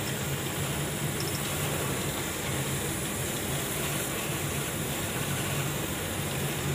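Laser cutting machine running as it cuts furry fabric: a steady hum with a continuous hiss, unchanging throughout.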